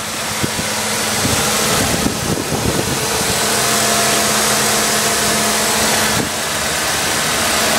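2005 Ford Escape's 2.3-litre four-cylinder engine idling steadily, heard up close in the open engine bay.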